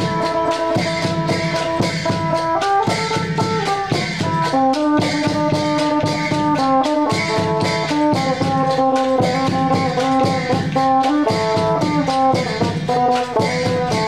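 Mak kap kaep, the Isan wooden hand clappers, clacking in rhythm over folk music: a reedy wind instrument plays a melody over sustained chords.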